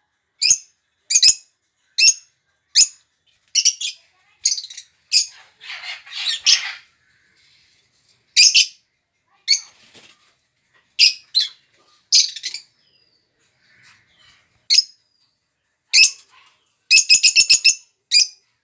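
Small pet parrots calling with short, shrill chirps, one about every second with gaps, and a quick run of several chirps near the end. There is a brief rustling sound around six seconds in.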